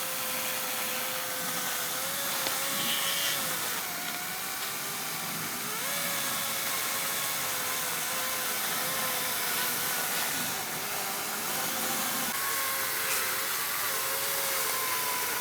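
Kobalt 24-volt battery electric chainsaw running steadily, its motor whine dipping in pitch now and then as it cuts into wood.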